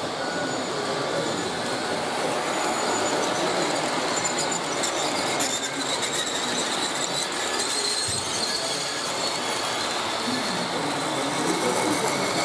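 G-scale model train cars rolling past close by on metal track: a steady rolling rumble of the wheels on the rails, with a thin high squeal from the wheels in the middle of the passing.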